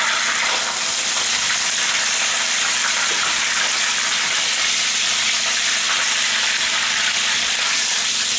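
Chunks of pork deep-frying in hot oil in a pan: a steady sizzle.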